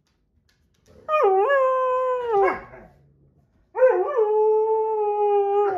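Husky-malamute mix howling in displeasure at two other dogs playing. There are two long howls, each dipping in pitch at the start and then held on one pitch. The first comes about a second in, and the second starts after a gap of about a second and runs on.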